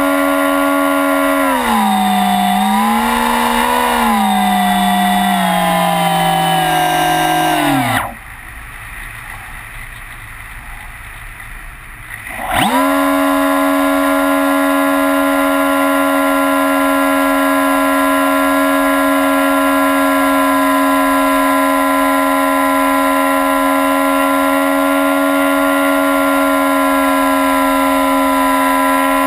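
A model airplane's motor and propeller, heard from on board, whining steadily at high throttle. The pitch dips and wavers early on, slides down and cuts out about eight seconds in, leaving a few seconds of quieter air rush as the plane glides. It then snaps back up to full speed and holds steady.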